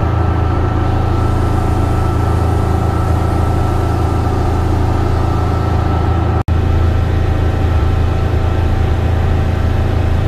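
Motorboat engine running at speed under way, a loud steady drone with a thin steady whine above it. It drops out for an instant about six and a half seconds in, then carries on unchanged.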